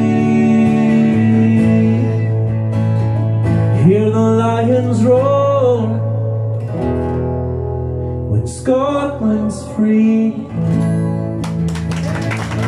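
Two acoustic guitars strumming the closing chords of a folk song, with sung notes without words sliding up and down over them twice.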